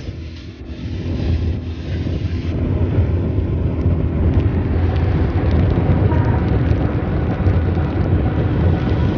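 Steady low rumble of a car's engine and tyres on the road, heard from inside the moving car, growing a little louder a few seconds in.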